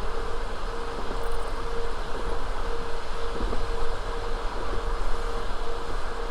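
Passenger train running between stations: a steady rumble of the wheels on the rails, with a constant hum that drops out briefly now and then and a few faint knocks.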